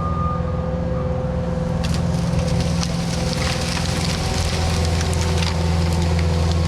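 Diesel engine of a Cat tracked skid steer running steadily while it clears brush, with occasional sharp cracks. A backup alarm beep sounds right at the start.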